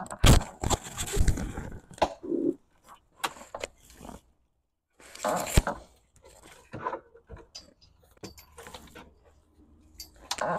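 Irregular scrapes, clicks and rustles of hands working a thin wire along the metal frame under a golf cart. The sound breaks off into dead silence for about half a second a little over four seconds in.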